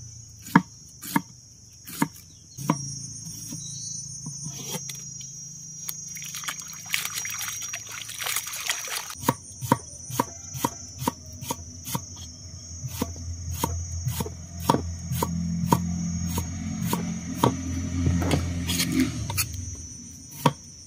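Cleaver chopping banana stem on a wooden chopping board: sharp knocks, spaced out at first, then a steady run of about two a second from about nine seconds in. A steady high insect trill runs underneath, and a low hum swells and fades in the second half.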